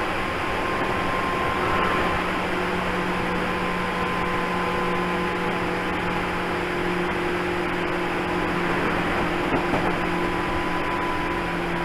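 Inside a JR 205-series electric commuter train car: a steady mechanical hum with several constant tones.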